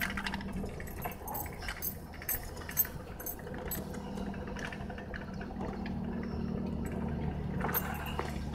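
Chevrolet K20 pickup heard from inside the cab, its engine running steadily at low speed. Frequent light clicks and rattles from the cab come over the drone as it bumps along a rough dirt track.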